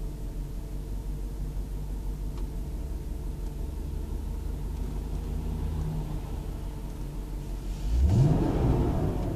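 BMW 540i E34's 4.0-litre V8 idling steadily, heard for its intake noise. Near the end a quick blip of the throttle sends the engine note sharply up, and it then falls back toward idle.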